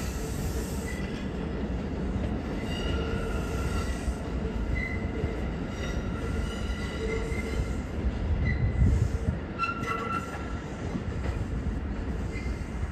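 New York City subway train running away over the switches, its wheels rumbling with short, high-pitched squeals that come and go. The rumble swells briefly about nine seconds in.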